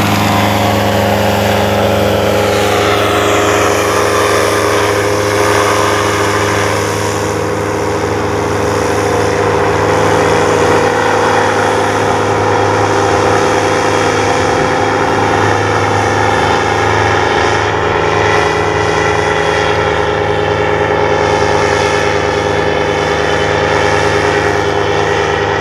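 Paramotor engine and propeller running steadily at high power during takeoff and climb-out, with a drop in pitch in the upper tones a few seconds in.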